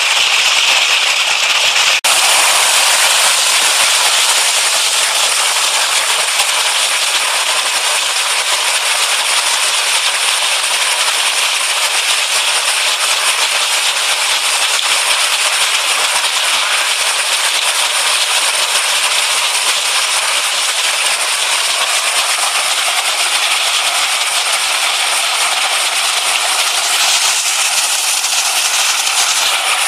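Mountain stream and a small waterfall pouring over rocks close to the microphone: a loud, steady rush and splash of water, broken only by a short dip about two seconds in.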